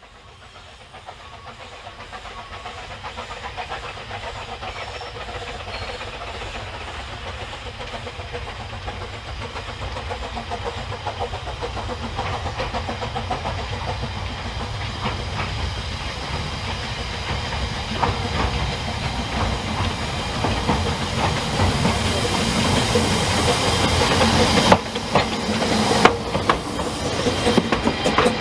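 Narrow-gauge Ffestiniog Railway train running, growing steadily louder, with the wheels clicking over the rails and a few sharp knocks near the end.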